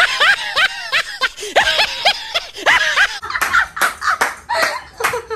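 Laughter in short, rapid bursts, rising and falling in pitch. About three seconds in there is an abrupt cut to a different room sound, and the laughing goes on in choppier bursts.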